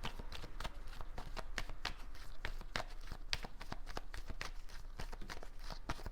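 Tarot cards being shuffled by hand: a quick, irregular run of soft card clicks and flicks, several a second.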